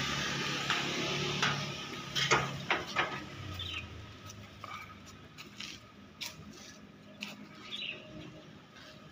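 Outdoor yard ambience with a low hum. A few sharp clicks and knocks come about two to three seconds in, and short high chirps are heard twice.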